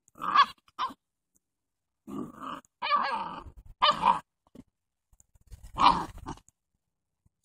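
Seven-week-old Doberman puppies growling and barking at each other in play, in about half a dozen short bursts.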